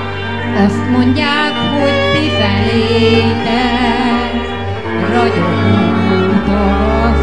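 Hungarian Gypsy band (violins, cimbalom and double bass) playing a magyar nóta, the lead violin carrying the melody with wide vibrato over sustained bass notes.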